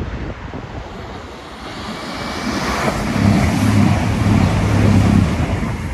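CrossCountry Voyager diesel multiple unit approaching and passing beneath. The rush of the train and the hum of its underfloor diesel engines build over the first three seconds, then stay loud as the coaches go by.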